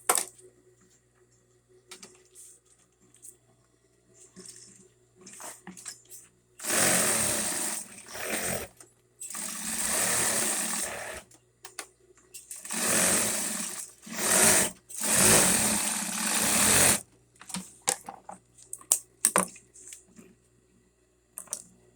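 Straight-stitch sewing machine fitted with a binder attachment, running in five short bursts about a third of the way in to three quarters through as it stitches binding tape onto the edge of a bag. Small handling clicks before and after the stitching.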